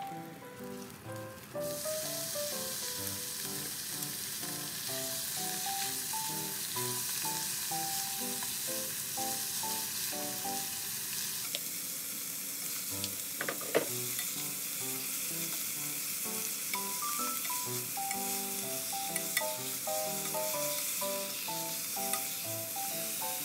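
Oil sizzling in a frying pan as garlic and dried chili fry, growing to a fuller sizzle about halfway through as sliced beef goes in and is stirred with chopsticks, with one sharp clack soon after. Light melodic background music plays underneath.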